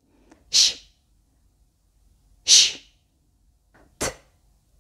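A woman's voice pronouncing isolated Polish consonant sounds: a voiceless hiss, said twice about two seconds apart, then a short sharp burst like a plosive consonant near the end.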